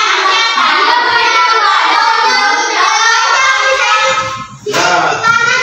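A group of schoolchildren's voices together, loud and high-pitched, for about four and a half seconds, with another voice starting near the end.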